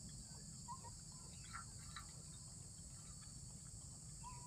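Faint outdoor background: a steady high-pitched insect hiss, as of crickets, with a few soft short chirps.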